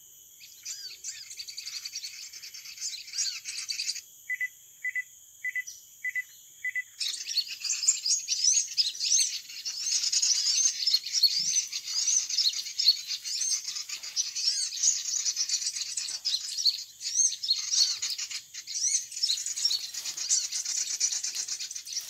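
Many small birds chirping and twittering in dense, overlapping calls that thicken about seven seconds in; shortly before that, a run of five evenly spaced chirps, about two a second.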